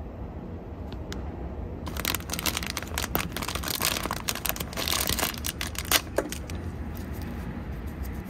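Plastic snack wrapper crinkling and tearing, a few seconds of dense crackling that starts about two seconds in and dies away after about six, over a steady low hum.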